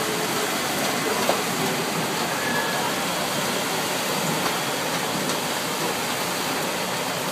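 Steady hiss of heavy rain pouring onto a flooded street, with rushing floodwater.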